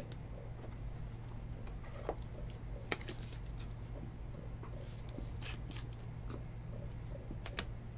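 Faint scrapes and a few light clicks of a trading card being slid into a clear plastic holder and handled, over a steady low electrical hum.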